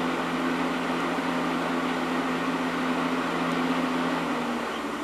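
A steady machine hum with an airy hiss, like a running household appliance or fan, that stops about four and a half seconds in.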